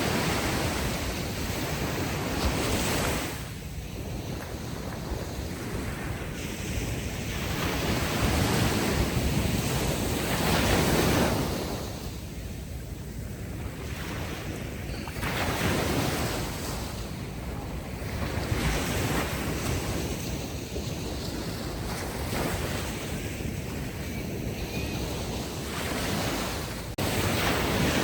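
Ocean waves washing ashore on a beach, the surf noise swelling and ebbing every few seconds.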